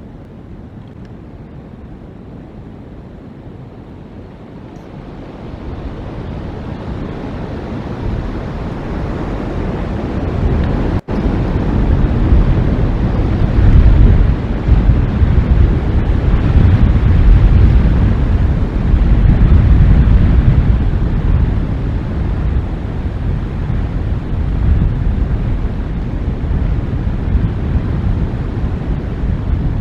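Wind buffeting an outdoor nest-cam microphone: a low rumbling noise that builds from about five seconds in and is strongest in the middle, with the sound cutting out for an instant about eleven seconds in.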